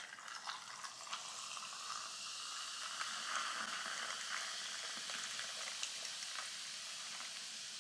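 Perrier sparkling water fizzing: a steady crackling hiss of bubbles bursting, speckled with tiny pops, fading near the end.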